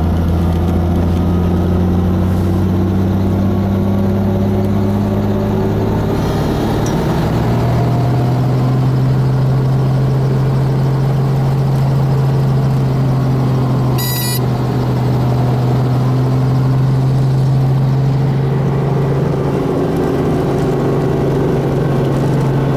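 Helicopter engine and rotor running steadily and loudly, the engine pitch stepping up about a third of the way in. A brief sharp click-like beep comes about two-thirds of the way through.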